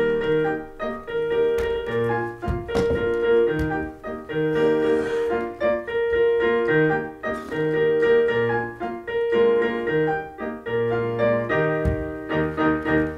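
Live piano playing an instrumental interlude between verses of a sung couplet: a repeating mid-range note pattern over changing bass notes. A low thump sounds about two and a half seconds in and again near the end.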